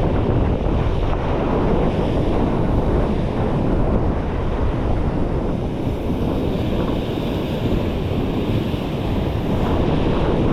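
Wind buffeting the microphone over a steady wash of ocean surf against a rock ledge.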